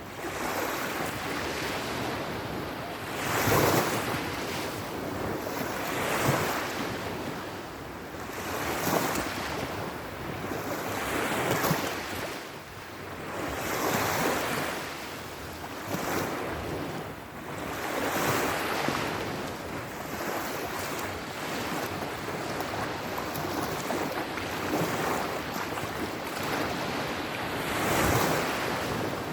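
Sea surf: waves washing in and breaking as a steady hiss that swells and falls every few seconds.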